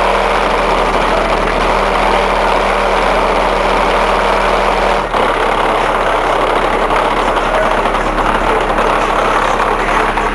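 MTX 7500 subwoofer playing heavy bass from a hip-hop track at high volume, its cone flexing through very large excursions. A steady deep bass tone holds throughout, with a second, higher bass tone that drops out about five seconds in.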